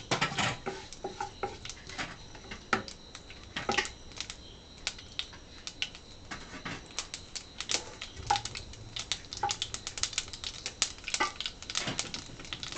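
Mustard seeds popping and spluttering in hot oil: irregular sharp crackles that come thicker near the end. This is the tempering stage, with the oil hot enough for the seeds to burst.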